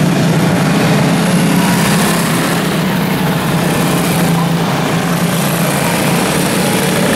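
Several quarter midget race cars' small single-cylinder engines running together in a steady drone as the cars circle the dirt oval.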